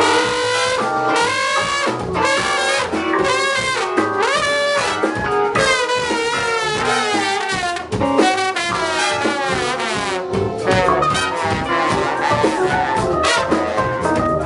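An ensemble of wind instruments plays dense, free-sounding music, several lines at once, with pitches often sliding up and down.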